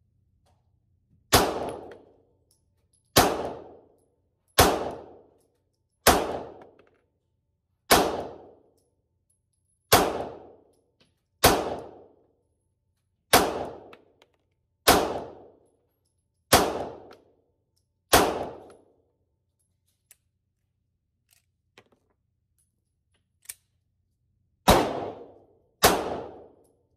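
Pistol shots fired one at a time, each a sharp crack with a short ringing tail: eleven at a steady pace, about one every one and a half to two seconds, then a pause of about six seconds and two more near the end.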